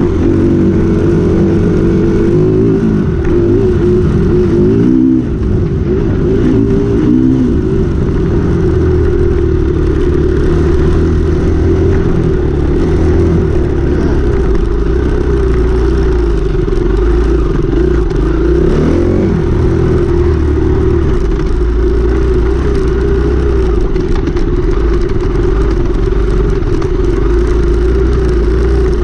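KTM 350 EXC single-cylinder four-stroke enduro bike engine running hard while being ridden off-road, rising and falling in pitch several times in the first seven seconds and once more about two-thirds of the way through, steady between.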